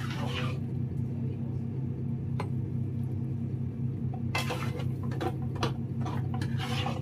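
A stir-fry being tipped from a pan into a ceramic bowl: short scrapes and clinks of the pan against the bowl, a few at the start and a busier run from about four seconds in, over a steady low hum.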